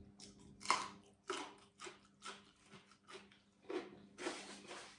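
A person biting into a raw red radish and chewing it, with crisp crunches about twice a second.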